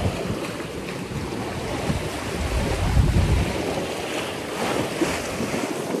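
Wind buffeting the microphone over the rush of ocean waves, aboard a sailboat broad reaching offshore. The low buffeting is heaviest about halfway through.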